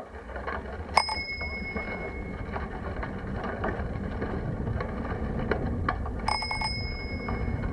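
Bicycle bell rung twice, about a second in and again about five seconds later, the second time with a few quick strikes; each ring fades out over about a second. Under it, the steady rumble and small rattles of the bicycle rolling along a concrete lane.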